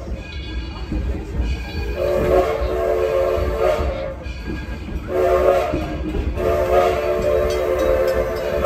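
Steam locomotive's chime whistle sounding a long blast, a short blast, then another long blast, a chord of several steady notes, over the low rumble of the train running.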